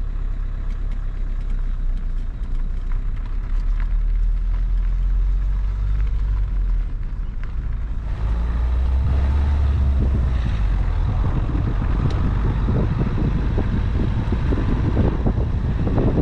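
Car being driven, its engine and tyres giving a steady low rumble heard from inside the car. About halfway through, the noise grows rougher and broader.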